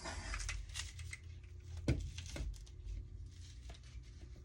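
A handheld butane torch's hiss cuts off just after the start. Then come scattered small clicks and taps of tools being handled, the loudest a sharp knock about two seconds in.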